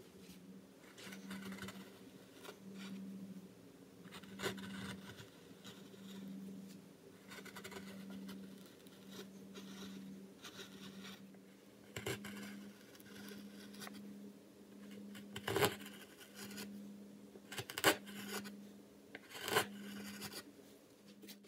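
Carving gouges paring mahogany by hand: irregular scraping, slicing strokes through the wood, with a few sharp clicks in the second half.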